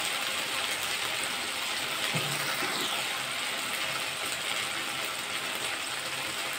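Whole spices (cumin seeds, dried red chillies, cardamom, cinnamon and cloves) sizzling steadily in hot mustard oil in a kadai: the tempering (phoron) frying.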